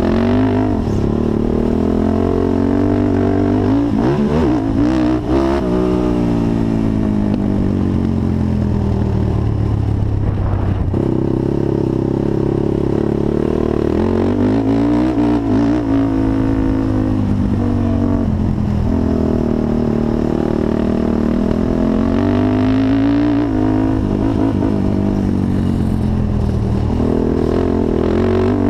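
Honda TRX450 quad's single-cylinder four-stroke engine being ridden hard, revving up and falling back over and over as the throttle opens and closes, with a sudden drop in pitch about eleven seconds in.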